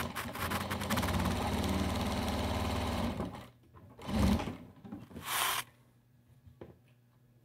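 Electric domestic sewing machine stitching at a steady fast pace for about three seconds, then stopping. Two short rustling handling sounds follow as the sewn patchwork is moved and drawn out from the machine.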